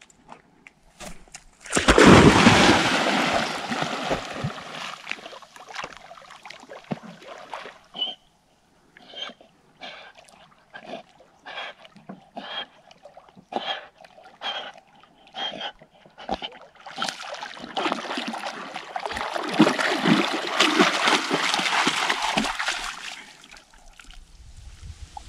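A dog splashing into lake water, loudest about two seconds in, then a run of short, regular splashes, then a longer stretch of splashing near the end.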